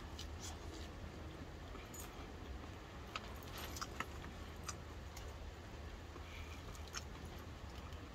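Close-up eating sounds: chewing a mouthful of Jack in the Box Southwest salad, with scattered light clicks and crinkles from the fork and food packaging.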